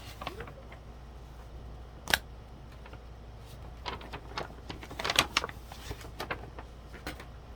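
Scattered clicks and light knocks of small items and papers being handled and set down while box contents are sorted. One sharper click comes about two seconds in, and a cluster of clicks comes a few seconds later.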